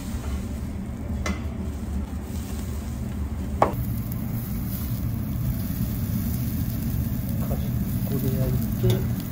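Beef intestine (tecchan) sizzling on a mesh grill over charcoal, over a low steady hum. A sharp click comes about a third of the way in, and after it the hiss of the sizzle is plainer.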